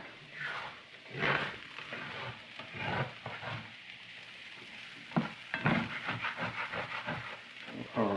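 Diced home-fried potatoes sizzling in oil in a stainless steel skillet, scraped and turned over with a plastic spatula in irregular strokes. A few sharper knocks of the spatula on the pan come about five seconds in.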